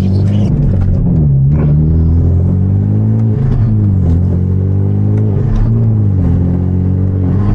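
Hyundai Genesis Coupe's turbocharged four-cylinder engine with a loud exhaust, accelerating under load, its revs climbing and dropping several times as the manual gearbox is shifted, with brief turbo hiss at the gear changes.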